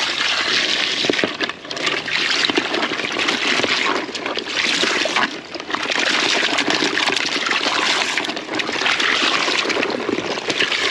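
Water pouring and splashing into a cooler of live crawfish as they are purged, with two brief dips in the flow.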